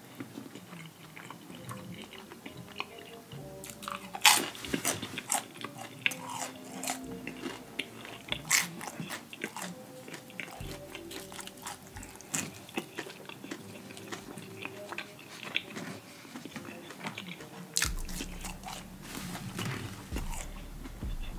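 A person eating: crunchy bites and chewing of a fried corned beef egg roll and French fries, with moist mouth smacking between the crunches. The sharpest crunches come about four and eight seconds in.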